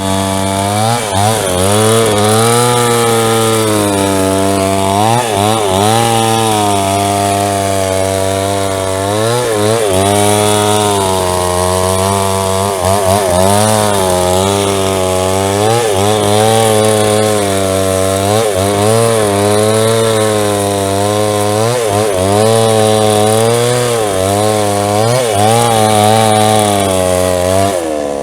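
JCK two-stroke chainsaw with a 22-inch bar cutting through a log, running continuously. Its engine pitch dips and recovers again and again as the chain loads up in the wood.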